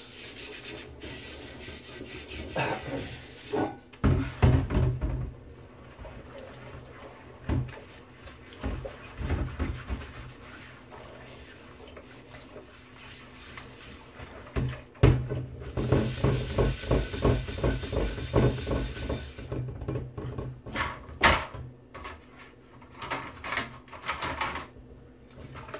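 Cast iron skillet being scrubbed in a stainless steel sink to clear old seasoning loosened by a lye bath: irregular scraping strokes and sharp knocks as the pan is worked and moved, with a quieter spell midway.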